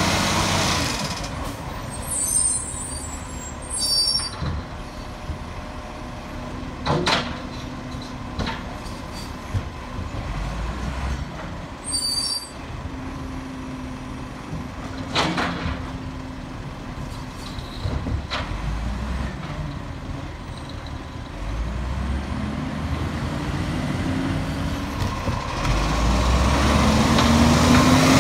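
Acco recycling truck's diesel engine pulling away with a rising pitch, then running quieter in the middle with several short air-brake hisses and a few sharp clicks. Its engine builds again over the last several seconds as the truck comes close and revs up.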